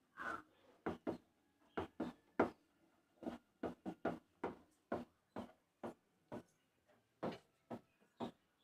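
A spoon knocking and scraping against a cooking pot in short, irregular strokes, about one or two a second, as a thickening rice-flour and root-juice porridge (kali) is stirred.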